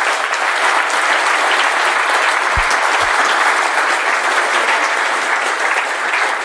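Audience applauding steadily, a dense sound of many hands clapping, with two dull thumps about two and a half and three seconds in.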